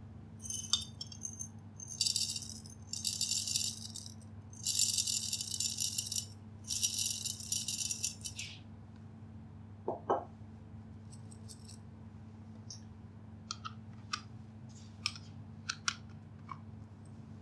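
Dry rattling in five bursts of one to two seconds each, then a short pitched sound and scattered light clicks.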